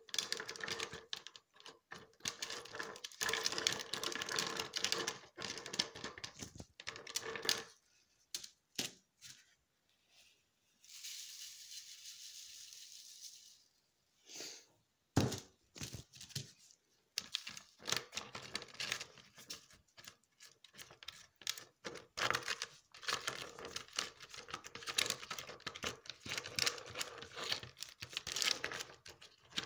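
Ice chunks in a plastic tub being stirred into lye with a spatula, making an uneven run of clicks, knocks and scrapes. There is a short hiss near the middle.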